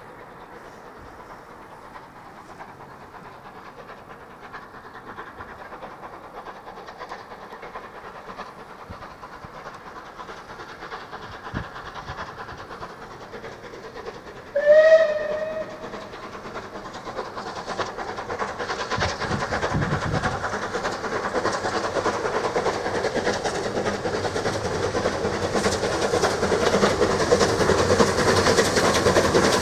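Rebuilt Bulleid Battle of Britain class steam locomotive 34053 approaching, its exhaust and running noise growing steadily louder. About halfway through it gives one short whistle blast that rises slightly in pitch at the start.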